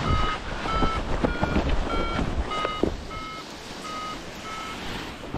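Paragliding variometer beeping, short beeps a little under two a second whose pitch shifts slightly from beep to beep, over wind noise on the microphone that fades as the wing comes down after landing.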